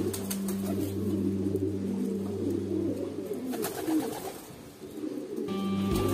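Domestic pigeons cooing in a low, rolling murmur over a steady low hum. Music fades in near the end.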